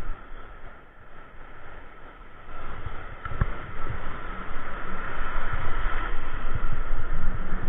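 Surf washing and foaming over a shallow reef, with wind buffeting the microphone. The rushing grows louder from about three seconds in.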